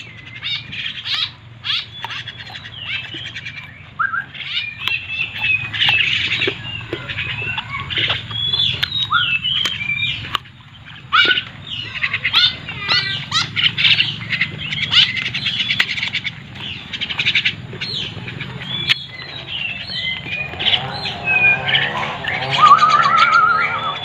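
Several wild birds calling: quick, sharp chirps and squawks one after another, with a lower, longer call joining in near the end.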